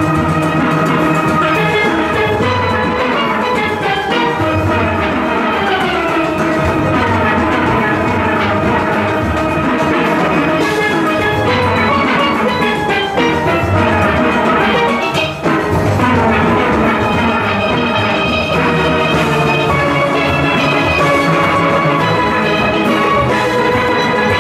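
A large steel orchestra playing together: many steelpans ringing out the melody and chords over a drum beat.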